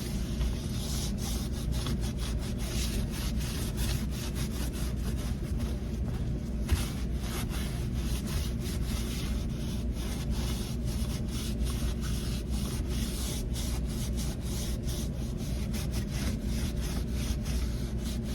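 Rubber washing-machine door gasket being rubbed clean with acetone: many quick rubbing strokes over a steady low hum.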